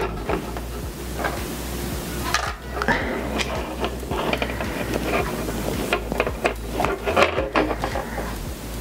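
Irregular small clicks and light rattling of a plastic S.H. Figuarts Iron Spider action figure being handled as a hand piece is swapped onto it.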